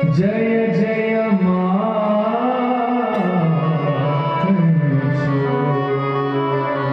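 Devotional bhajan: a male singer holds and bends long melodic notes without clear words over a steady drone accompaniment, with a few light percussion strokes.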